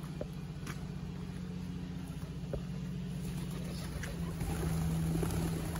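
Steady low drone of an engine running, growing a little louder and higher about four seconds in.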